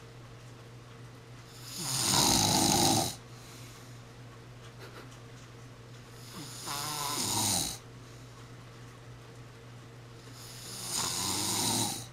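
A person snoring: three loud snores about four seconds apart, each lasting about a second and a half, with quieter breathing gaps between them.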